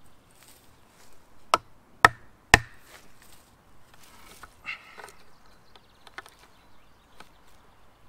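Wood knocking on wood as a table frame is built: three sharp knocks about half a second apart, a second and a half in, then lighter knocks and the handling of wood.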